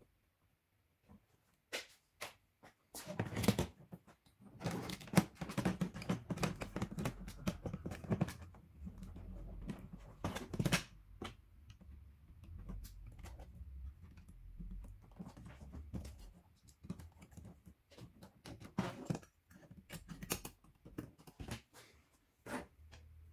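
Irregular clicks, taps and rustling of hands handling a flat-screen TV's main circuit board and its wiring inside the opened set, busiest in the first half.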